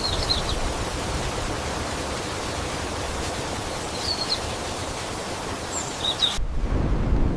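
Steady rushing of a breeze through tree leaves, with a few faint bird chirps. About six seconds in the sound changes abruptly to a duller, lower, gusty wind rumble.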